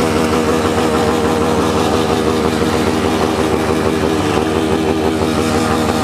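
Engine running at steady high revs, loud and even, with a hiss over it; it cuts off abruptly just after the end.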